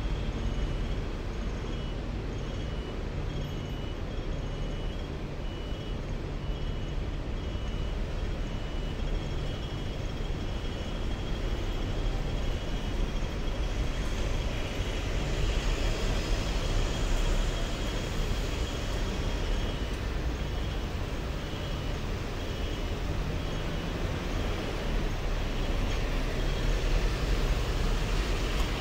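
Hong Kong double-decker tram running along its street track: a steady rumble from the motors and steel wheels on the rails, with road traffic around it. A faint high tone pulses steadily in the background.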